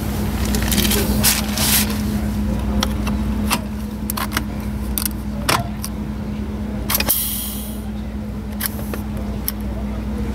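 Hands handling a truck's driver seat and its adjustment buttons: scattered clicks, knocks and plastic rustling over a steady low hum, with a short hiss of air about seven seconds in.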